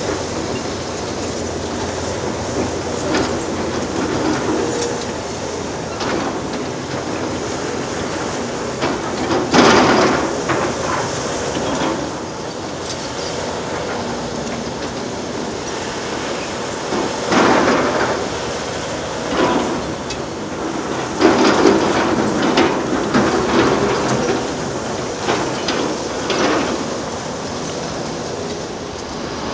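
Heavy hydraulic excavator engine running steadily under load, with irregular loud crunching and scraping bursts of demolition: concrete and metal being broken and dragged. The biggest bursts come about ten seconds in and again through the second half.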